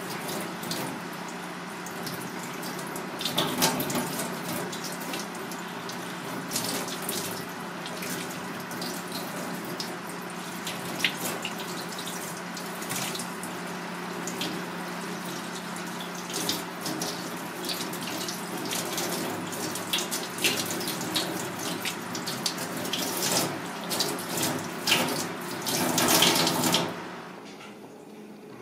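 Tap water running into a stainless steel sink and splashing over a skinned sea snake as it is rinsed and rubbed by hand, with many small splashes and knocks. The water cuts off near the end.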